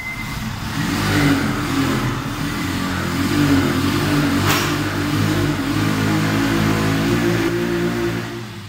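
Fuel injector cleaner machine running with a motorcycle fuel injector mounted on it. It makes a steady mechanical hum that starts suddenly and dies away near the end, with a sharp click about four and a half seconds in.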